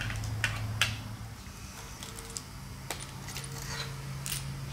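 A few sharp, scattered metallic clicks and clinks of a T-handle hex wrench working the bolts of a handlebar dashboard mount as they are tightened, over a faint steady hum.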